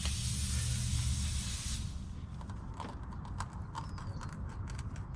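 Tire-repair reamer tool being pushed and twisted into the puncture of a tubeless truck tire: air hisses out of the hole for about two seconds, then fades to a few light clicks from the tool.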